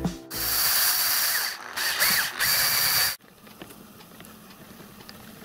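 A loud hissing rush for about three seconds, broken twice, then it drops away to faint clicking as the change gears and leadscrew drive of a small home-built lathe's screw-cutting train are turned by hand with a T-handle.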